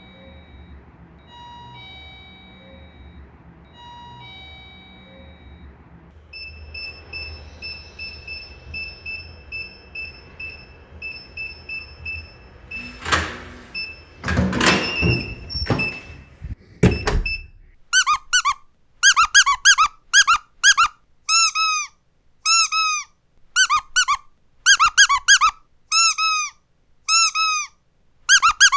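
Short electronic beep patterns and a few loud clunks, then from about 18 s a squeaky dog toy squeezed over and over, each squeak bending down in pitch.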